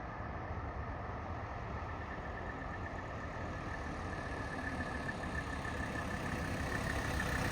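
The 1983 Mercedes-Benz 300CD's 3.0-litre turbodiesel inline-five running at low speed, a steady diesel rumble with a faint high whine, growing gradually louder toward the end.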